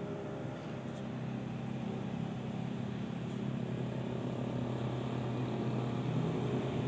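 An engine running with a steady low drone, growing slowly louder over the last few seconds.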